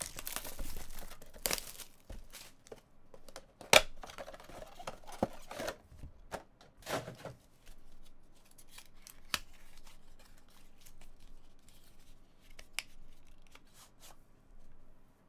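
Shrink-wrap and cardboard handling on a Panini Spectra trading card box: plastic wrap tearing and crinkling in the first couple of seconds. A sharp snap comes near four seconds as the box is opened, then the cardboard flaps rustle. Lighter taps and scrapes follow as the inner box is opened and its contents slid out.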